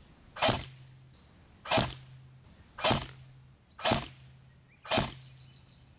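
Barra 400E lipo-battery electric (AEG) BB rifle firing .177 steel BBs on semi-auto: five single shots about one a second, each a sharp crack followed by a short low hum.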